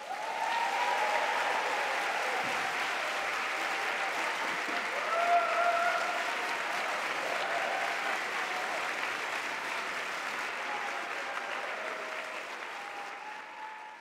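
A large audience applauding the end of a talk, with a few cheers over the clapping; the applause fades out near the end.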